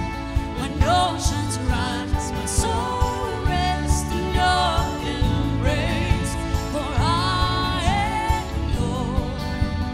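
Contemporary Christian worship song: a voice singing wavering, held notes over a band with a steady drum beat.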